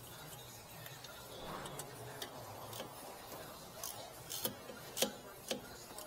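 Sharp clicks and light metallic knocks as parts of a car's front disc brake caliper are handled, scattered irregularly, with three louder clicks a little over halfway through.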